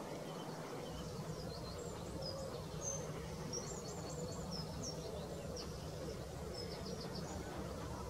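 Small birds chirping in the background with many short, high, quick notes, over a steady low hum of distant noise.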